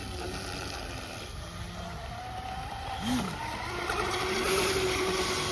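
Fast electric RC boat running on 2S with a 42 mm three-blade prop, its motor whining across the water. The whine rises in pitch, then a steadier, lower whine grows louder about four seconds in.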